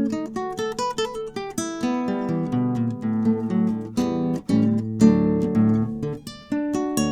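Solo classical guitar playing a piece: quick runs of plucked notes over ringing bass notes, with fuller chords struck every second or two.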